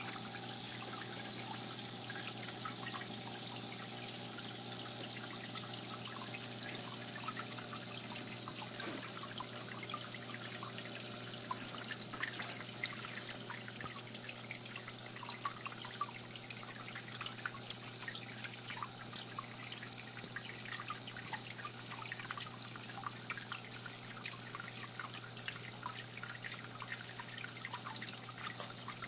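Water trickling and dripping in a planted paludarium: a steady watery hiss full of small irregular drips, over a steady low hum.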